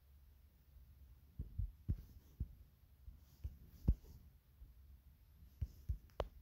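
Soft, irregular taps on a touchscreen while a drawing app is worked, heard as short low thumps over a faint steady low hum.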